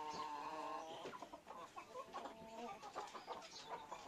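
Chickens clucking softly: a drawn-out call in the first second, then a scatter of short clucks.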